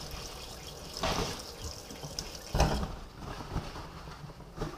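Water running from a kitchen tap into a stainless steel sink while wet raw chicken wings are handled, with two knocks, the louder about two and a half seconds in. The running water stops about three seconds in.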